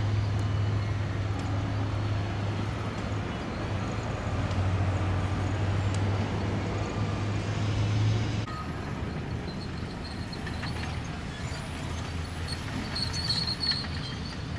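Outdoor road traffic noise with a steady low engine drone, which drops away abruptly about eight seconds in and leaves a quieter traffic hum with a few faint ticks.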